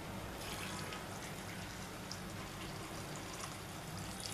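Water poured from a bowl into a pressure cooker onto chopped vegetables and spices: a quiet trickling splash.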